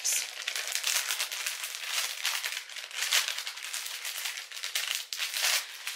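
Packaging crinkling and rustling as it is handled and opened, a dense run of small crackles without a break.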